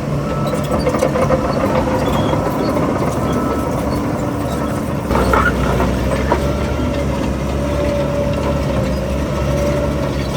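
Heavy diesel earthmoving machinery running steadily, with a short burst of metallic clatter about five seconds in, after which the engine note gets deeper and louder.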